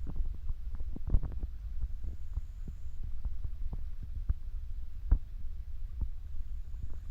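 River water flowing: a steady low rumble with irregular gurgling knocks, two of them stronger, about a second in and about five seconds in.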